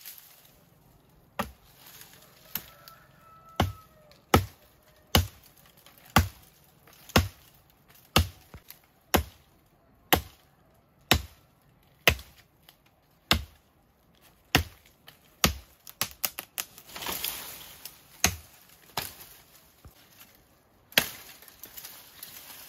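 Chopping with a blade, steady strokes about once a second, with a brief rustling noise a little after the middle.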